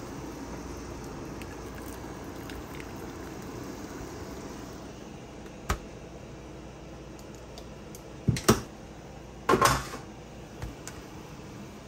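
Kitchen handling noises over a steady low background noise: a sharp click, then a quick pair of knocks and a short clatter of utensils against a metal sheet pan.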